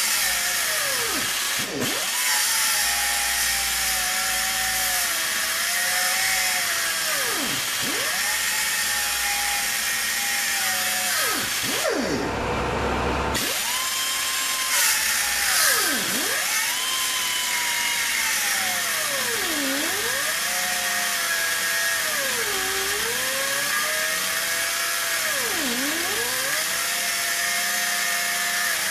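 Pneumatic 5-inch angle grinder with a 1 mm cut-off disc cutting through the steel shell of a refrigeration receiver tank, with a steady hissing rush. Its high whine sags in pitch again and again as the disc is pressed into the cut and slowed by the load, then climbs back.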